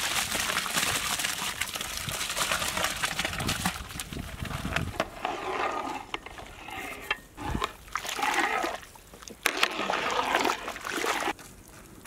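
Soaked basmati rice tipped into a big pot of boiling water makes a steady rush and splash for about the first six seconds. Then a long ladle stirs the water in stops and starts, with a couple of sharp knocks. The sound drops away abruptly near the end.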